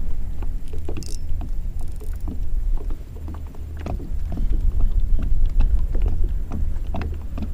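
Wind buffeting the microphone with a heavy low rumble, while water laps and knocks against a fishing kayak's hull in irregular short clicks and splashes.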